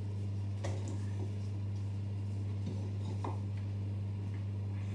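A spatula folding thick brownie batter in a glass bowl, with a few faint scrapes and taps against the bowl, over a steady low hum.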